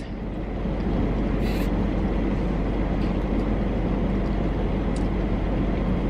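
Steady hum and hiss inside a car's cabin with the engine running, with a short slurping hiss from a sip through a straw about one and a half seconds in.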